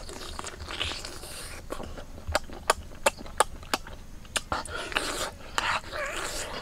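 Close-miked eating of cooked octopus: wet lip smacks and chewing in a quick run of about three a second. There are two stretches of noisy sucking and heavy breathing, one at the start and one near the end.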